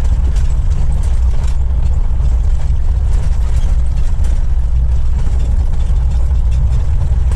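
Truck engine running steadily while driving: a loud, steady low drone.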